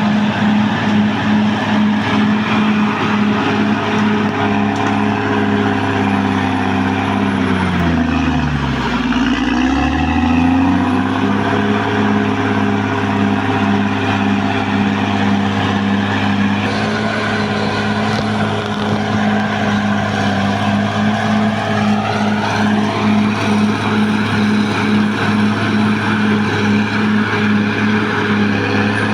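Caterpillar D6R XL bulldozer's diesel engine running steadily with a regular pulsing beat. About eight seconds in, the engine pitch drops sharply and climbs back within a couple of seconds. A short rising whine follows later.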